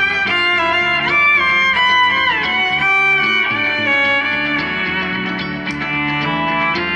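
Violin bowed live over layered loops from a looping pedal, with a repeated plucked-sounding figure underneath. The violin slides between notes about a second to two and a half seconds in.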